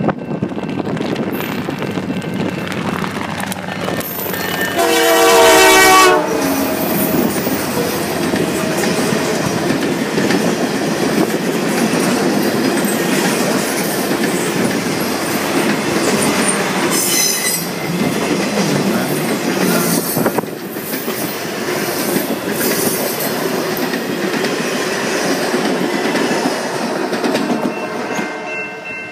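Canadian Pacific Holiday Train passing close by: the locomotive's horn sounds one blast of about a second and a half, about five seconds in, then the lighted freight cars rumble past with wheels clicking over the rail joints.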